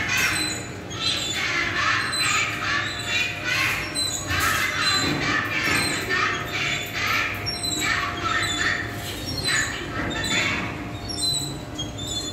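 Din of coin-operated kiddie rides: a run of shrill, noisy electronic sound effects about once a second over a faint steady tone, with snatches of ride music.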